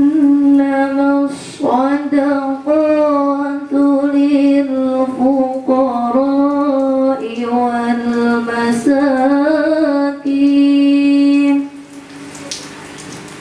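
A young woman reciting the Quran in the melodic tilawah style through a microphone, holding long, ornamented notes. The voice breaks off near the end.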